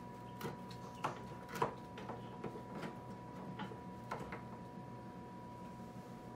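Irregular light plastic clicks and taps from a Brinsea Ovation 56 EX incubator's clear plastic lid and circuit board as the board is pressed into its slot. One sharper click comes about a second and a half in, and the clicks stop after about four and a half seconds. A faint steady hum runs underneath.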